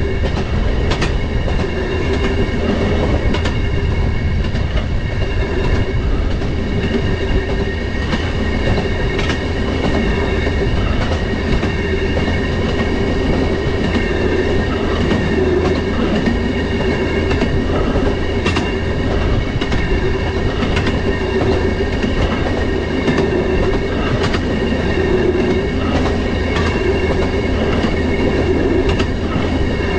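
Railroad motorcar running along the track: a steady, loud rolling rumble with a thin high whine, and scattered sharp clicks from the wheels on the rails.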